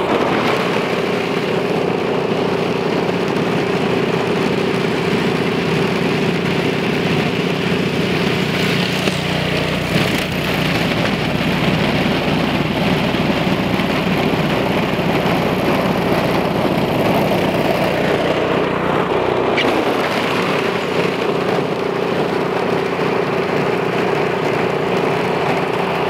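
Toro 721 QZR single-stage snowblower's four-stroke engine running steadily at working speed while its auger throws snow, with a deeper rumble joining from about nine seconds in until about twenty.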